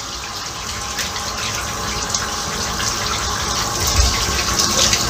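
Running water gushing steadily, growing gradually louder.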